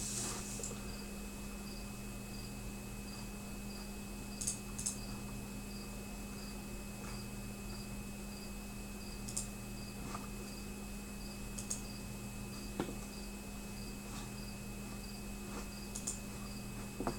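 A cricket chirping in short even pulses, about three a second, over a steady electrical hum, with a few brief faint clicks.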